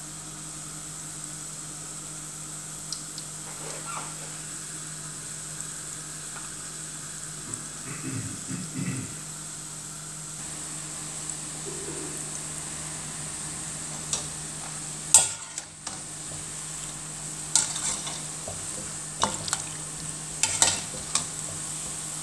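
Bread balls deep-frying in hot oil at about 170–180 °C, a steady sizzle and bubbling. A metal slotted skimmer clinks and scrapes against the enamel pan as they are turned and lifted, loudest about fifteen seconds in and several more times near the end.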